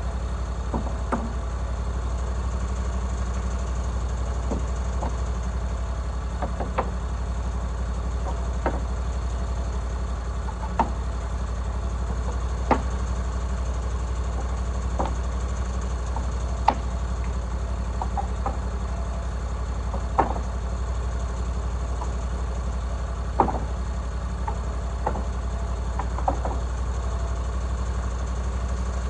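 Small engine idling steadily, with irregular sharp knocks and clicks every second or two over it.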